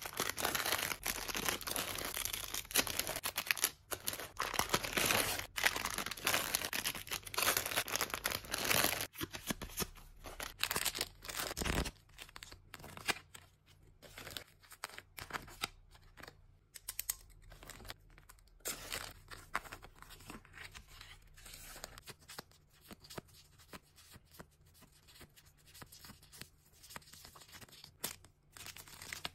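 Clear plastic cellophane wrap and bags crinkling and rustling as they are handled and packed into a cardboard box. The crinkling is dense and loud for the first nine seconds or so, then turns quieter and sparser, with scattered small rustles and taps.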